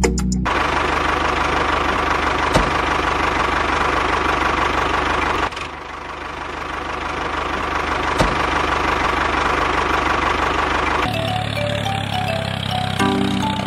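Engine running steadily with a low pulsing chug and a steady whine. It dips about five and a half seconds in and builds back up, and music with a simple melody comes in near the end.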